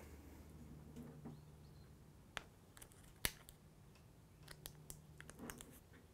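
Faint handling noise of a self-adhesive test tag being wrapped and pressed onto a power adapter's cable: a few light clicks and rustles, the sharpest a little past three seconds in and a small cluster near the end, over a faint low hum.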